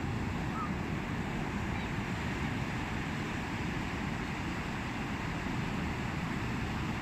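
Steady rushing noise of wind and sea waves, even and unbroken.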